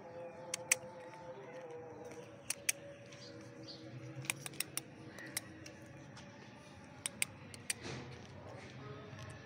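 Irregular sharp clicks and taps, about a dozen scattered through the few seconds, from Siberian husky puppies' claws on a concrete floor as they scramble about.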